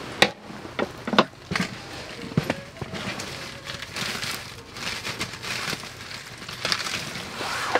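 Plastic sauce pouch crinkling as it is handled and squeezed, with scattered small clicks and taps in the first couple of seconds and crackly rustling later, while red sauce is squeezed out over shredded cabbage on a foam tray.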